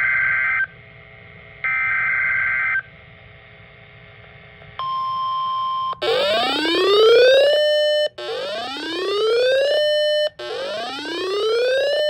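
Emergency Alert System tones starting a new warning: the last two short, screechy bursts of the SAME data header, then a brief steady attention beep about five seconds in. From about six seconds a loud alarm sweeps up in pitch and holds, repeating about every two seconds.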